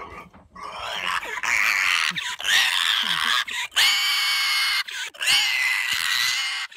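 A dog howling: several long, high-pitched howls, each about a second, one after another.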